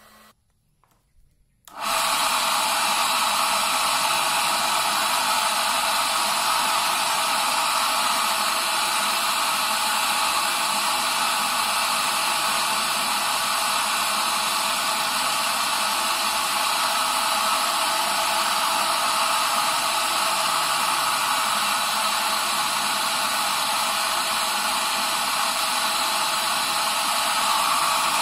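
Electric heat gun switched on about two seconds in, then blowing steadily with an even, hair-dryer-like rush of air while it heats the spinner head of a homemade cotton candy machine.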